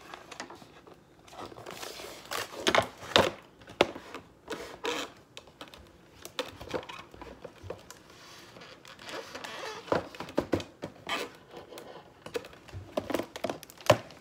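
Cardboard toy packaging being handled and pulled apart: irregular rustling and crinkling with scattered sharp knocks and clicks as the toy is freed from its cardboard backing and twist ties.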